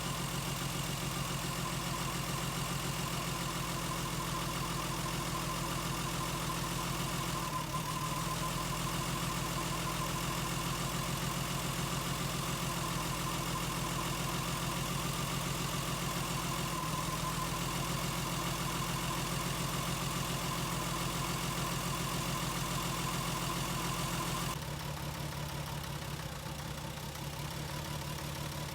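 Lexus IS200's 2.0-litre straight-six idling with a misfire on cylinders 1 and 2, most likely caused by a failed head gasket after coolant loss and overheating. It turns slightly quieter and changes tone about four seconds before the end.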